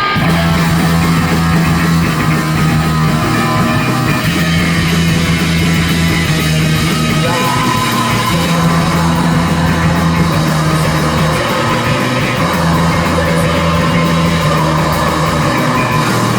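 Live heavy rock band playing loud and steady, with distorted electric guitar holding long low notes in a repeating riff.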